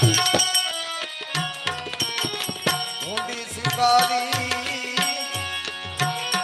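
Gujarati santvani devotional folk music without words: a regular hand-drum beat under held melody notes and a high metallic ringing.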